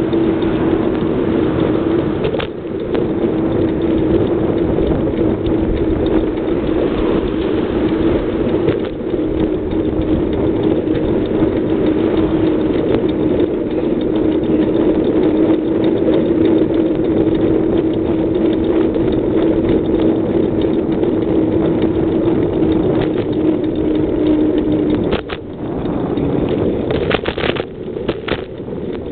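Riding a bicycle along a paved street: steady wind rush over the microphone with a steady hum underneath, which drops away near the end, followed by a few sharp clicks.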